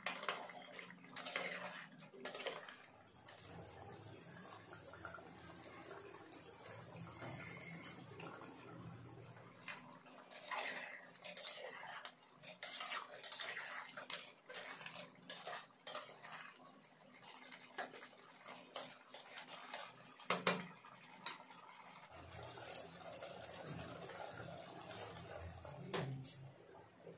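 Metal spoon clinking and scraping against a metal cooking pot as thick potato curry is stirred, with wet sounds from the gravy. The knocks come irregularly, the loudest about twenty seconds in.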